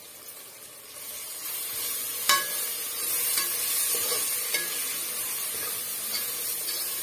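Onion-tomato masala with chilli powder and salt sizzling as it is stirred and sautéed with a metal spoon in a nonstick pot. The frying sizzle builds about a second in. The spoon clinks against the pot a few times, with one sharp knock a little over two seconds in.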